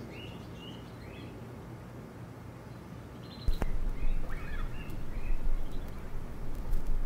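Small birds chirping over a steady low hum; about three and a half seconds in, a turntable stylus drops onto a vinyl record with a click, followed by surface crackle and low rumble.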